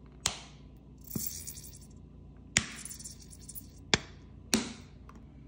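Plastic squeeze bottle of honey being squeezed: four sharp plastic clicks, each with a short hiss, and two longer hissing sputters from the nozzle.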